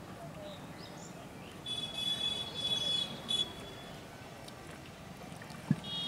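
Quiet open-river ambience with birds calling: a few short rising chirps, then a buzzy, high call lasting over a second about two seconds in. A single sharp knock near the end.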